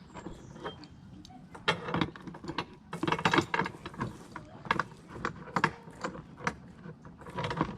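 Metal tow chain clinking and rattling in irregular clicks as it is wrapped around and hooked to a small ATV's front end.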